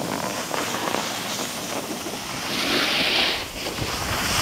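Wind buffeting the camera microphone, a steady rushing hiss with a louder swell of hiss about three seconds in.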